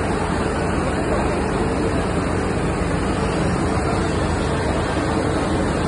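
Floodwater rushing as a steady, loud torrent.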